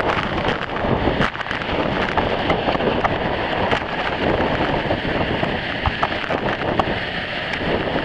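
Waterfall plunging into a lake at close range: a loud, steady rush of falling water, with spray and wind buffeting the microphone.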